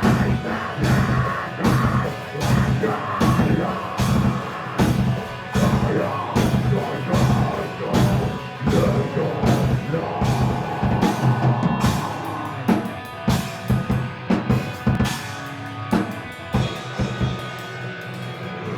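Rock music with a drum kit keeping a steady, driving beat over sustained low bass tones; the drumming thins out in the last few seconds.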